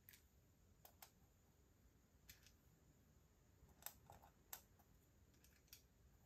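Faint, scattered light clicks of metal tweezers picking up small plastic perler beads and setting them onto a plastic pegboard, about ten irregular ticks over a quiet hiss.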